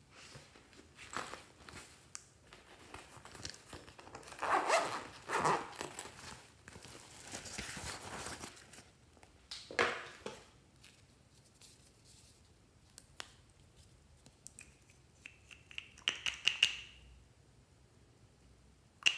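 Glossy plastic packaging crinkling, rustling and tearing as hands handle it. Near the end come a quick run of small clicks with a short squeak, then a sharp click, as the glass nail polish bottle's cap is twisted open.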